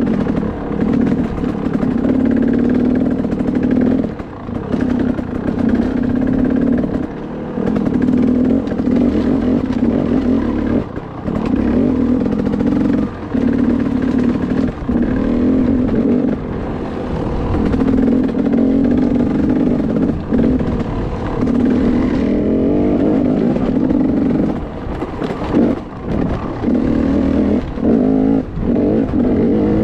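Dirt bike engine running under throttle on a rough trail, its steady drone dropping off briefly every few seconds as the throttle is eased, with occasional knocks from the bike over the bumps.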